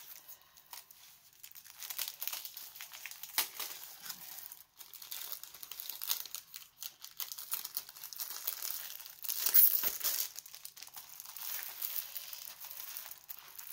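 Clear plastic wrapping crinkling as hands unwrap a rolled diamond painting canvas. The crackling comes in irregular bursts, with the loudest about nine and a half seconds in.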